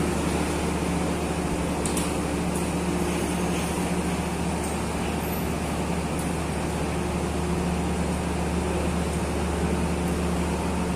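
Steady low diesel hum of a passenger train standing at the platform, its engines idling while it waits to depart, with a couple of faint clicks about two seconds in.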